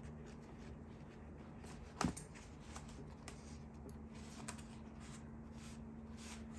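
Faint rustling and light clicks of the glasses' packaging and its contents being handled, with one sharper tap about two seconds in, over a steady low hum.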